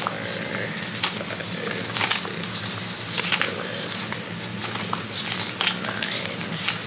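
Paper prop-money bills being flicked and peeled off a stack by hand, with irregular crisp rustles and light snaps of paper over a steady low hum.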